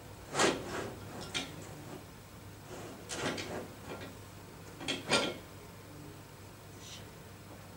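Hardware being handled by hand: short scraping and clunking sounds, about five in five seconds, the loudest about half a second in and again just after five seconds.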